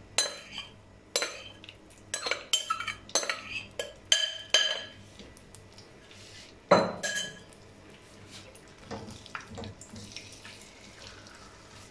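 Metal spoon clinking and scraping against a glass bowl as marinated beef is scraped out into a wok: a quick string of ringing clinks over the first five seconds and one louder knock about seven seconds in. After that, softer scraping of a spatula stirring the meat in the pan.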